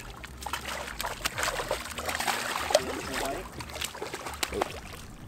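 Hooked snook thrashing at the water's surface: a quick run of splashes, loudest about halfway through.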